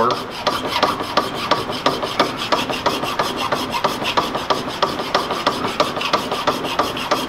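Hand file being worked back and forth over the metal of an MG overdrive planet gear carrier in quick, even strokes, dressing down a dented spot on the housing.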